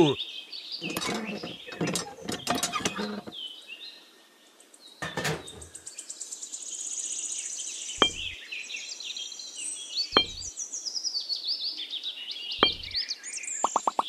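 Birds chirping in the background, with three short sharp taps of tiny clay bricks being set down one by one.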